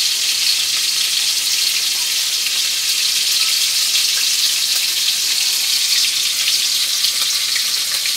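Yellowfin tuna steak frying in hot oil in a wok: a steady sizzle dotted with small crackles.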